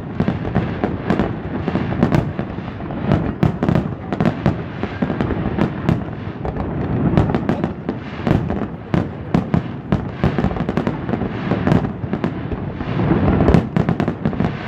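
Aerial fireworks display: a rapid, unbroken run of bangs from shells bursting overhead, over a constant low rumble, loudest near the end.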